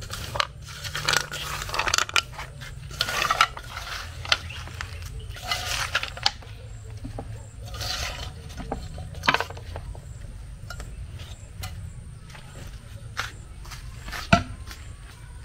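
Cooked palm nuts scraped by hand out of a metal colander into a wooden mortar: irregular wet rustling swishes with light clinks of the colander, and one sharp knock near the end.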